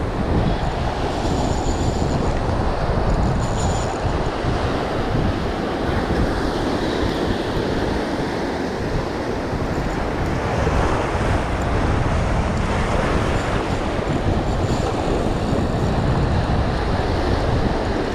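Steady wind buffeting the microphone, a heavy low rumble, over the wash of breaking surf.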